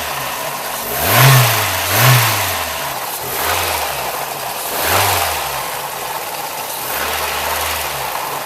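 Toyota 22RE four-cylinder engine idling while the throttle is blipped: two quick revs about a second and two seconds in, then smaller ones later. A light plasticky rattle as the revs drop is the timing chain slapping a cracked plastic driver's side chain guide.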